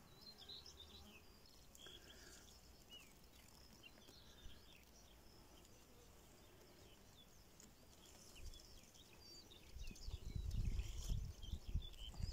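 Faint bird chirps and short calls in the background. Over the last few seconds, irregular low rumbling buffets the microphone.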